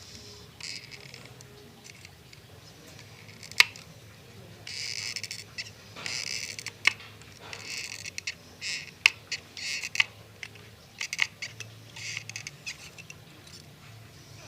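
Scissors cutting the small blades of a miniature boat propeller: a series of short, scratchy cutting strokes with sharp clicks of the blades in between.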